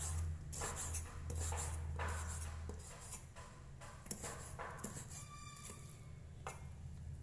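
Cleaver slicing shiitake mushrooms on a wooden chopping board: irregular knocks of the blade on the board, about two a second.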